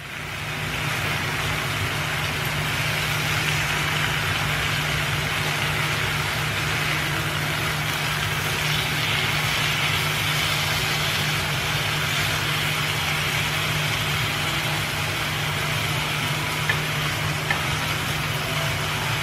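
Tomato slices, onion and garlic sizzling in hot oil in a frying pan, a steady hiss over a constant low hum. There are a couple of light taps from the wooden spatula near the end.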